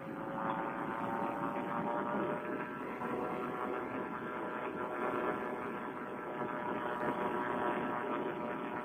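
Vittorazi Moster two-stroke paramotor engine running steadily in flight, its pitch rising slightly over the first couple of seconds and then holding.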